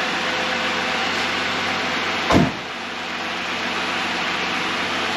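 A steady rushing hum, with one loud thump a little over two seconds in, after which the hum is slightly quieter.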